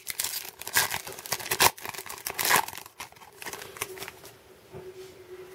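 A Topps Chrome baseball card pack's crinkly wrapper being torn open and crumpled: a run of sharp crackles and rips over the first three seconds, then fainter rustling as the cards are drawn out.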